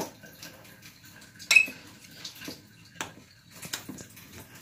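Metal spoon clinking and scraping against a glass bowl while mixing steamed rice-flour dough: a handful of irregular clinks, the loudest about one and a half seconds in.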